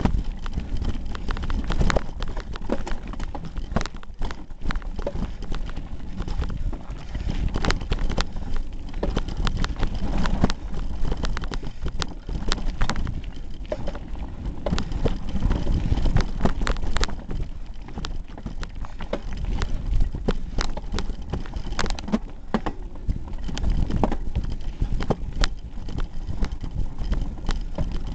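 Continuous rattling and clattering as a hardtail mountain bike rides over a rocky trail, picked up by a small camera duct-taped to the handlebars: irregular knocks from the tyres hitting stones and the bike and camera shaking, over a low rumble.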